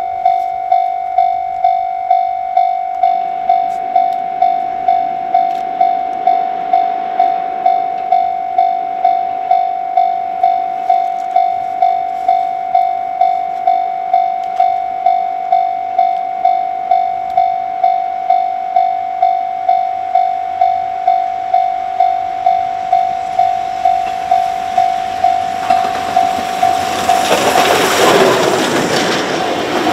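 Railway level-crossing bell ringing steadily, under two even strokes a second, while the C57 180 steam locomotive approaches with its train; near the end the 12-series passenger coaches roll loudly past close by.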